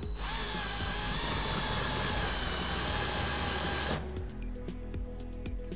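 Cordless drill spinning a 3/4-inch five-flute countersink bit into a white plastic sheet, a steady whining cut that stops abruptly about four seconds in.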